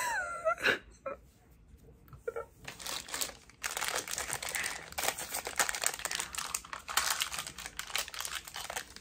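Close rustling and crinkling handling noise, a dense run of small crackles and clicks that starts about two and a half seconds in.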